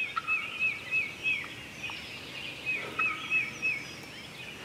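Songbird singing in two quick runs of about five repeated whistled notes each, with fainter bird chirps behind.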